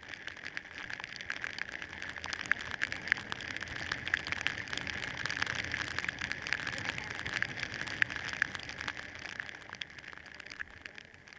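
Heavy rain striking a motorcycle-mounted camera while riding: a dense run of sharp raindrop ticks over a steady hiss. It grows louder toward the middle and eases near the end.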